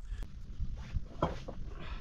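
A small shovel working stony dirt and loose rocks: a few light knocks of metal and stone, then a short scrape near the end.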